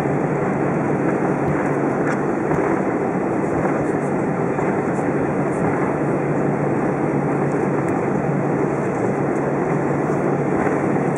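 Steady cabin noise of an Airbus A320 taxiing: the jet engines running at low taxi thrust with the rumble of the airframe rolling, under a constant low hum.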